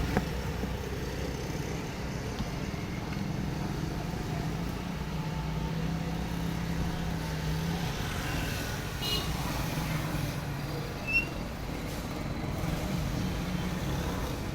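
Steady low hum over even background noise, with one short click about eleven seconds in.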